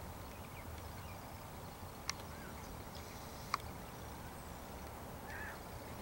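Two sharp clicks about a second and a half apart over a steady low background rumble.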